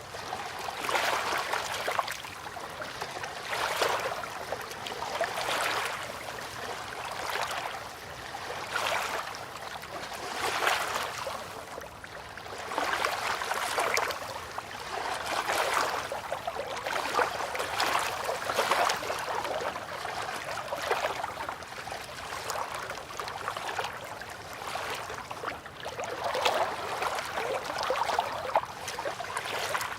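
Gentle river water lapping against a bank, in soft splashing swells every couple of seconds.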